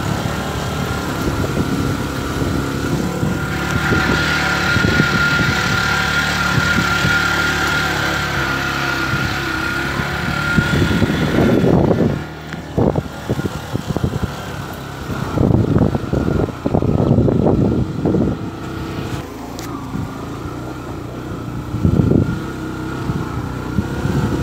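Motorcycle engine running at a steady pace on a rough dirt track, with a steady high whine for several seconds in the first half. From about halfway, irregular bursts of low rumbling noise come and go over the engine.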